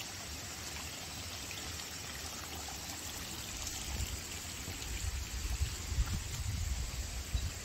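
Rainwater runoff trickling across the muddy ground and running in a ditch, swollen after a typhoon's overnight rain, as a steady watery hiss. Low rumbling gusts on the microphone come in over the second half.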